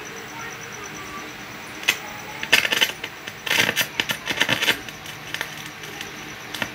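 A run of sharp clicks and light metallic clinking, starting about two seconds in and bunched over the next three seconds, as things are handled at an electronics repair bench.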